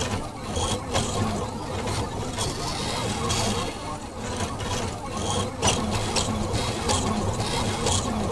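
Delta 3D food printer's stepper motors whirring in rising and falling glides as the print head moves while extruding, over a steady low hum, with a few sharp clicks.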